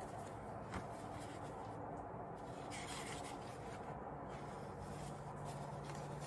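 Soft rustling and rubbing of a paperback book being handled, its cover and pages brushing as it is opened, with a small click less than a second in. A faint steady hum runs underneath.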